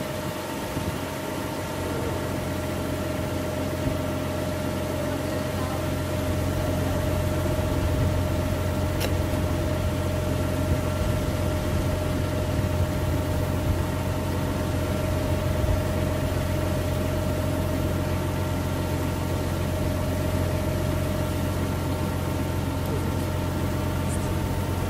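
Tractor engine running steadily with a constant drone and steady whine while driving the hydraulics that lower a mobile grain dryer's drying tower flat onto its transport trailer.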